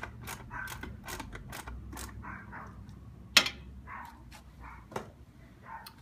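Ratcheting screwdriver clicking in quick runs, about four clicks a second with a soft rasp on each back-swing, as screws are driven into a water heater's cover. A single sharper knock comes a little past halfway, and after it the clicks thin out.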